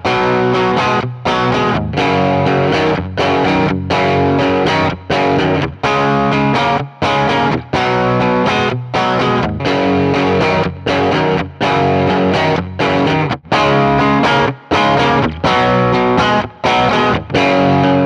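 Telecaster-style electric guitar on its bridge pickup, played through a Marshall amp: a chord riff strummed in short phrases that stop briefly every second or so.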